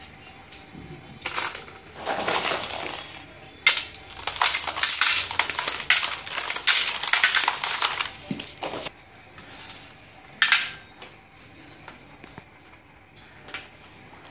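Handfuls of slate pencils clattering as they are dropped into a metal tray: a few short spills and one long pour from about four to eight seconds in.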